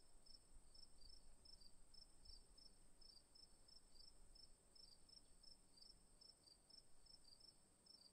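Faint insect chorus: a steady high-pitched trill with short regular chirps over it, about three a second.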